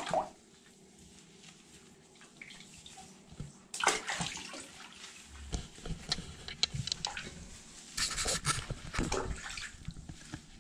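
Water sloshing and splashing in a bathtub as hands scrub a soapy, wet puppy. The sound comes in short bursts, loudest about four seconds in and again about eight seconds in, with quieter stretches between.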